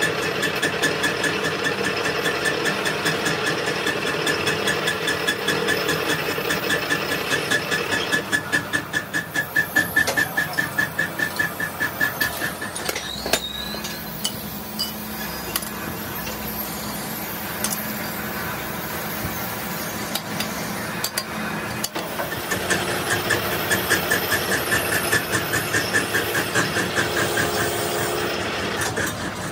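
Crankshaft production machinery running: a steady mechanical hum with a high whine that pulses about four times a second, easing off around the middle and picking up again later.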